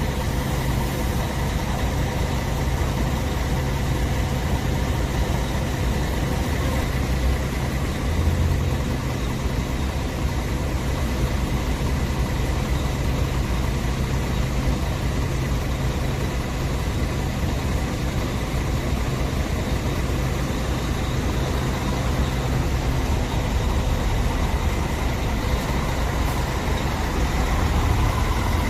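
Bus engine running steadily at idle, a low hum with a faint steady whine over it, swelling slightly near the end.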